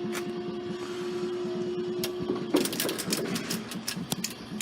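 Class 171 diesel multiple unit passing the level crossing. A steady engine hum with a fast rhythmic clatter cuts off about halfway, and a quick run of sharp clicks follows.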